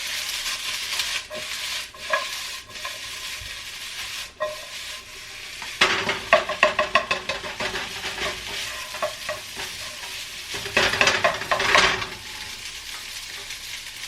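Egg fried rice sizzling in a hot pan while it is stirred and tossed, with two stretches of quick, louder scraping strokes, about halfway through and again near the end.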